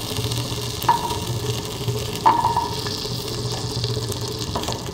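Butter sizzling in the base of a metal pressure cooker as garlic cloves are dropped in, two of them landing with a short metallic clink about one and two seconds in.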